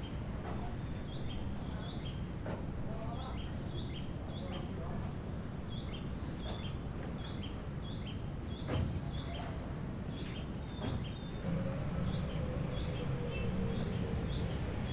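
Small birds chirping in quick, short repeated calls over a steady low rumble of background noise, with a single knock about nine seconds in.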